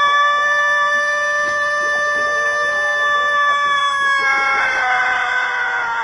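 A rooster holding one very long, steady crow that, about four and a half seconds in, drops in pitch and turns rough as it trails off.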